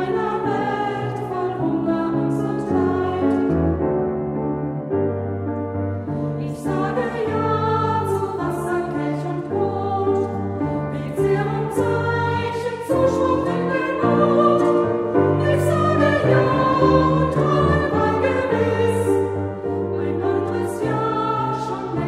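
Small women's choir singing a German hymn in unison or parts, accompanied by piano with sustained low bass notes under the voices.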